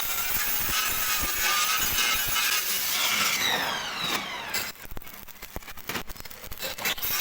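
A power tool running, then winding down with a falling whine about three and a half seconds in, followed by light clicks and knocks.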